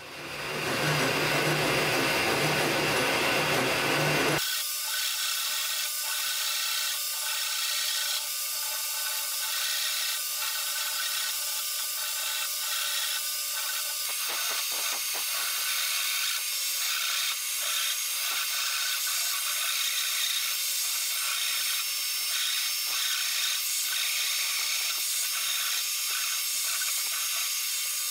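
Hand saw cutting kerfs into the end of a wooden post held in a vise, a steady rasp of saw strokes. Under it a vacuum cleaner runs steadily at the cut, drawing away the sawdust.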